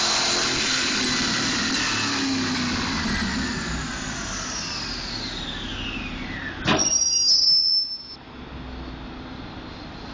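Ported supercharged 5.4-litre V8 of a 1999 Ford Lightning winding down on a chassis dyno after a pull, a high whine falling steadily in pitch over about five seconds. Near seven seconds in comes a sudden sharp click and about a second of loud hissing noise, after which the engine and rollers run on more quietly.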